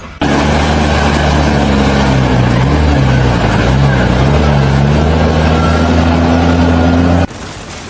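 A loud engine running steadily, its pitch dipping and recovering a few times partway through, over a hiss of noise. It starts and stops abruptly.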